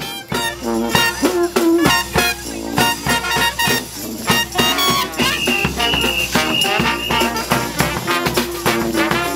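New Orleans-style jazz brass band playing an upbeat swing tune on trumpet, saxophone, trombone, sousaphone and drums. A high horn note is held in several long blasts a little after the middle.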